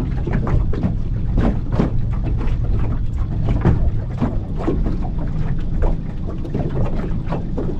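Small Mercury tiller outboard running as an aluminum jon boat moves across the lake, a steady low rumble with wind on the microphone and frequent knocks of water slapping the hull.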